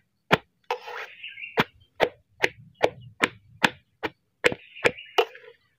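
Metal blade chopping raw food in a steel basin: sharp, regular strikes about two and a half a second, with a short pause about a second in.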